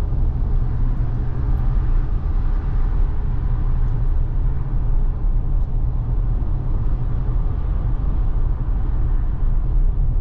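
Steady road and tyre rumble inside the cabin of a Tesla electric car cruising at freeway speed, with no engine note.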